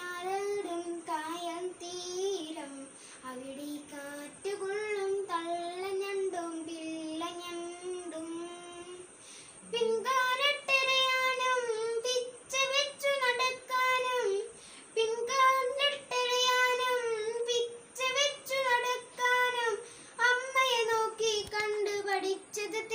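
A young boy singing a song alone, with no instruments heard. About ten seconds in, after a short pause, he takes up a higher, louder phrase.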